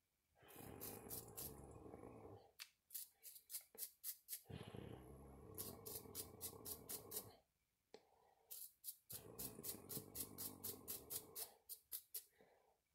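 Small wire brush scrubbing tiny metal parts of a black powder rifle: faint, quick scratching strokes, about six or seven a second, in four runs broken by short pauses.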